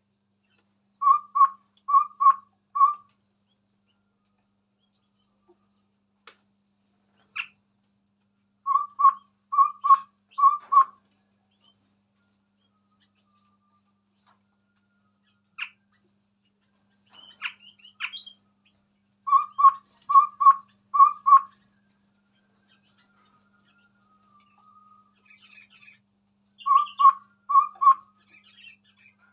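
Chestnut-rumped babbler (tepus tunggir merah) singing: four phrases spaced several seconds apart, each made of three or four quick double notes on one pitch. Faint high chirps come between the phrases.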